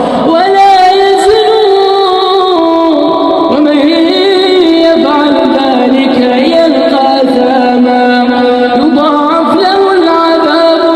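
Melodic chanted recitation by a voice, in the style of Quran tilawat, holding long notes that waver and bend in ornamented runs.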